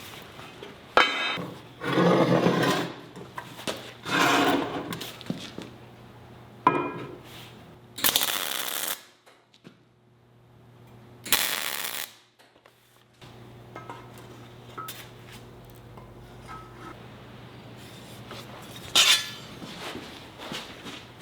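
Steel pieces clanking and scraping as they are handled in a fabrication shop, a series of separate loud knocks and longer scrapes, over a steady low hum.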